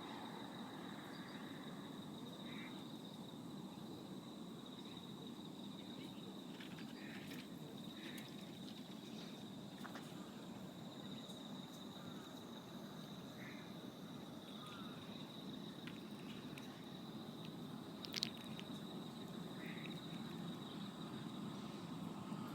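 Insects trilling steadily at a high pitch over a low background rumble, with a few faint short chirps and one sharp click near the end.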